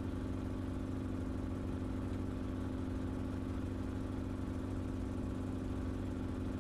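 Enstrom helicopter in flight: a steady drone of engine and rotor, with an unchanging hum.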